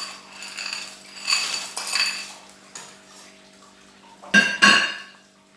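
Metal utensil clinking and knocking against a cooking pot: a few short ringing clinks, then two louder clatters near the end.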